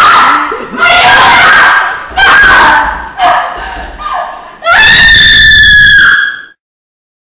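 A person screaming in a run of loud, high-pitched screams, each about a second long, with a final longer scream that cuts off abruptly into silence about six and a half seconds in.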